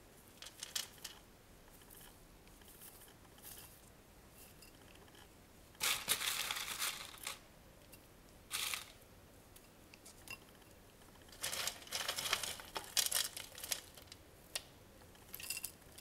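Gloved hands packing dry sphagnum moss and clay pebbles into a terracotta pot: bursts of crackly rustling, the longest about six seconds in and again around twelve seconds in, with a few short ones between.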